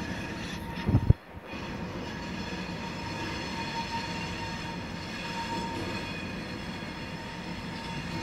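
Diesel locomotive running as it approaches slowly along the track, a steady engine rumble with a high, even whine over it. A brief, loud low thump comes about a second in.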